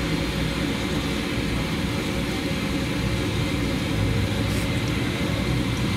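Steady sizzle of chicken pieces deep-frying in a large karahi of hot, vigorously bubbling oil, over a continuous low rumble.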